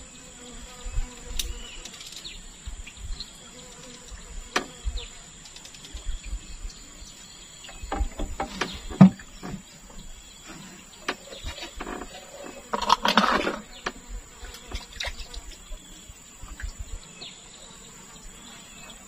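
Steady high-pitched insect drone, with scattered clicks and knocks and a louder noise lasting about a second near the thirteen-second mark.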